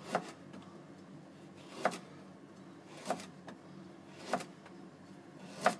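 A kitchen knife slicing through a burdock root and striking a plastic cutting board, five separate cuts a little over a second apart.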